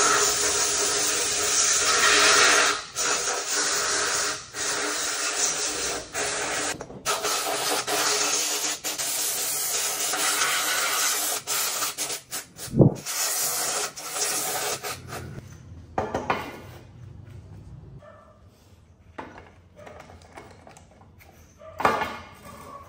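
Steady rasping noise of abrasive work on a part, like sanding or filing, for about fifteen seconds, with one loud knock about thirteen seconds in; after that only quieter scraping and handling sounds.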